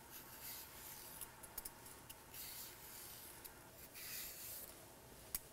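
Vegetable peeler shaving thin ribbons off a mooli (daikon radish): faint scraping strokes, about one a second, with a few small ticks.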